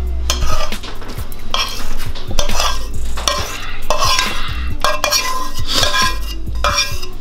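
A metal spoon scraping and clinking against a skillet as sautéed peppers and onions are scraped out into a pan of cheese sauce, in a run of short, irregular scrapes and knocks.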